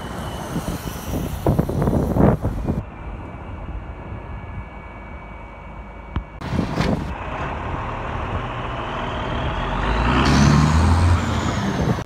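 Wind blowing on the microphone in gusts over street noise, then a motor vehicle passing close, growing louder toward the end and dropping away as it goes by.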